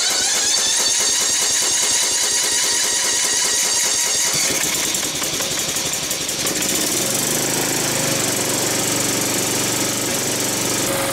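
Single-cylinder Kohler Courage 18 hp engine of a riding mower running steadily with no air filter fitted, freshly brought back after being seized. Its sound turns lower about seven seconds in.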